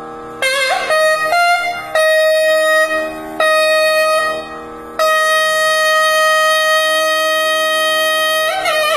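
Nadaswaram playing a slow, unmetred alapana in raga Sahana over a faint steady drone. After the drone alone for about half a second, the pipe comes in with a few short phrases, holds one long steady note from about five seconds in, then breaks into gliding ornaments near the end.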